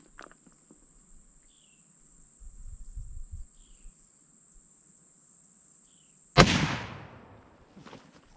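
A single rifle shot from a Henry lever-action .45-70 being sighted in, about six seconds in: a sharp, loud crack that trails off in an echo over about a second. Three faint short chirps come before it.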